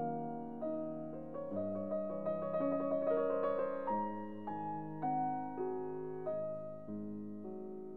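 Background piano music: slow chords of struck notes that fade after each strike, with a busier run of notes near the middle.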